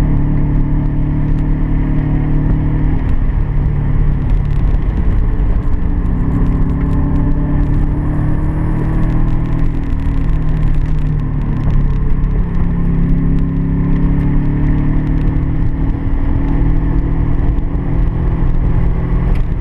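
Car engine pulling hard through the gears, its pitch climbing and then dropping back several times at the gear changes, over wind and road noise.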